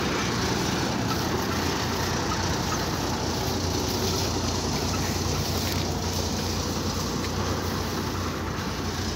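Combine harvester running steadily: a constant low engine hum under a dense, even mechanical rush.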